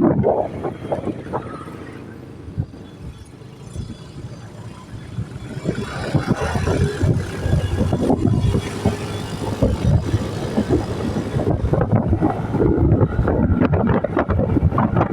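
Rumbling vehicle noise with wind buffeting the microphone; it dips quieter for a few seconds, then grows louder again from about six seconds in.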